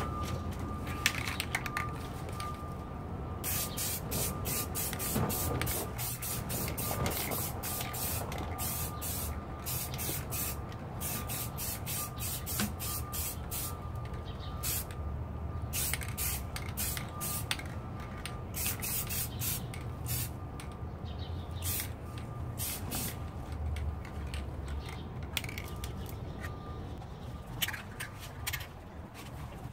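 Aerosol spray can of clear satin coat hissing in a long series of short bursts as the final protective clear coat goes onto a spray-painted AR-15.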